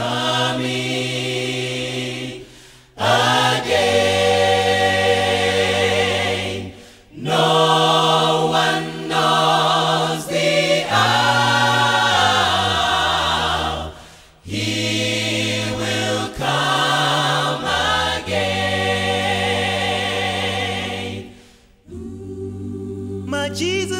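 Gospel choir singing in full harmony, long held chords in phrases with brief breaths between them.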